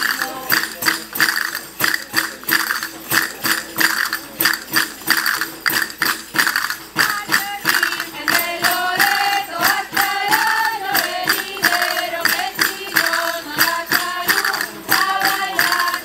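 Women's group singing a traditional folk song to panderetas, tambourines struck in a steady beat; the voices come through most strongly from about halfway through.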